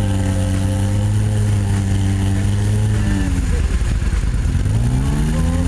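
A motor engine running steadily, its pitch dropping about three seconds in as it slows, then climbing back up near the end as it speeds up again.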